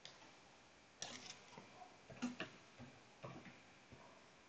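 Faint computer keyboard typing: a scattered run of soft key clicks starting about a second in and stopping before the end.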